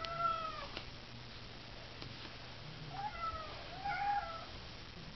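Domestic cat meowing three times: one meow at the start, then two more close together about three seconds in.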